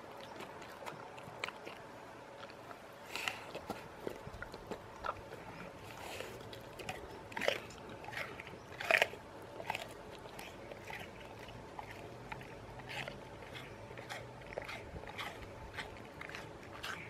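A bull terrier biting and chewing apple, with irregular wet crunches throughout, the loudest a little before and a little after the middle.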